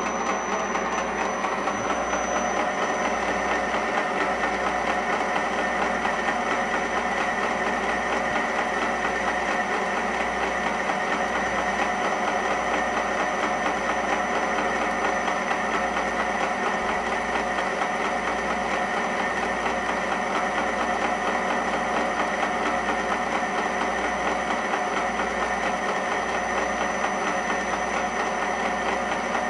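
South Bend metal lathe running under power feed, a boring bar taking a slow cut inside a spinning blank of unhardened A2 tool steel. A steady machine hum and whir.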